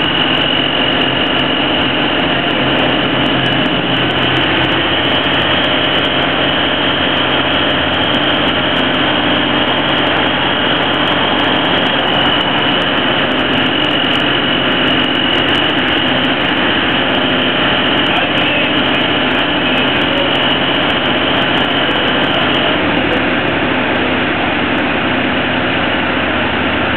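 Heavy construction equipment's diesel engine running steadily at a low idle, with a steady high whine over it that stops near the end.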